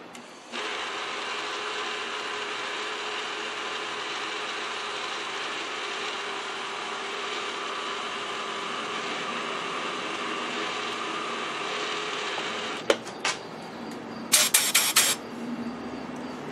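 Vertical milling machine running, its end mill cutting a shallow pocket in a lathe tool-holder blank: a steady whir with a hum. The machine stops about 13 seconds in, followed by a couple of sharp clicks and short loud noise bursts near the end.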